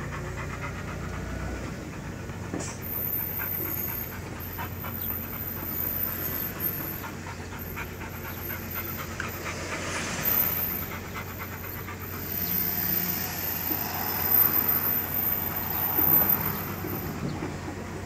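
Steady engine and road noise inside a moving van, with small clicks and rattles, and a dog panting in the cab.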